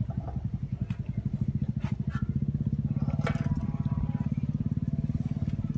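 Kubota three-cylinder diesel engine idling with a steady, even chug.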